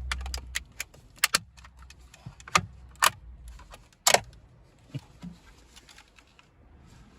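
Plastic centre-console trim panel of a Porsche Taycan clicking and knocking as it is pulled up and out and handled, a string of sharp clicks with a few louder snaps, the loudest about four seconds in.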